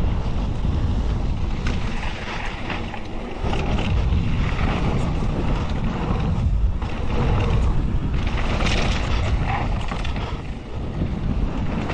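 Wind buffeting the action camera's microphone along with the tyres of a downhill mountain bike rolling over a dirt trail at speed: a steady, loud rumble and hiss that dips briefly near the end.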